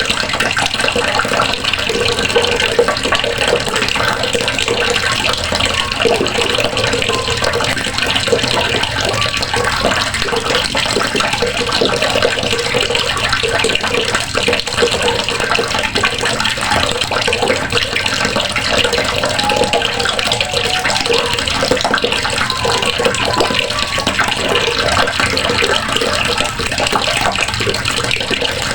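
Water running steadily from a faucet and splashing into the basin or tub below.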